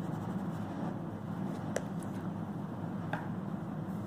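Ballpoint pen scratching on notebook paper while drawing arrows and letters on a diagram, with a couple of light taps, over a steady low background hum.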